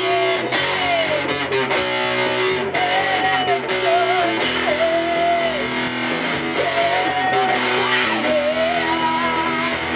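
Rock music played live on electric guitar, with a melody line that bends and wavers above the chords.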